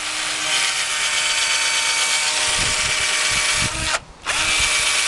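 Cordless drill with a twist bit running steadily, stopping briefly about four seconds in and then starting again.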